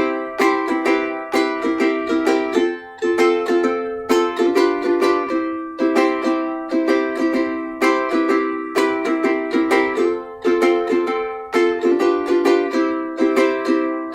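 Ukulele strummed in a steady rhythm, chord after chord, with no singing.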